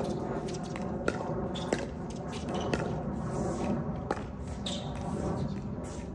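Pickleball paddles hitting a hard plastic ball during a rally: sharp pops at uneven gaps of about one second.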